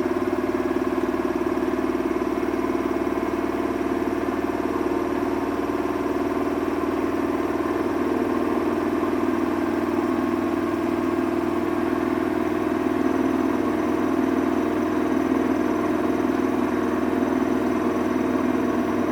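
Samsung washing machine running mid-cycle: a steady mechanical hum with a tonal motor whine as the drum turns.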